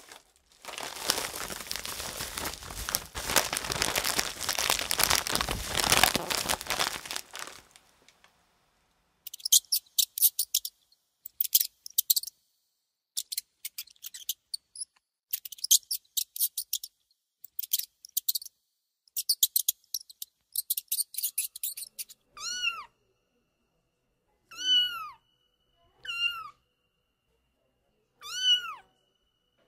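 A run of animal sound effects: first a long, harsh hiss lasting about six seconds, then clusters of rapid, very high-pitched squeaky chirps, then short, falling kitten-like mews repeated about every two seconds.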